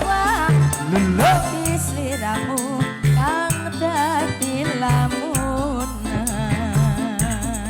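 Live band playing dance music: a wavering lead melody with vibrato over a steady, regular bass beat, with no singing words.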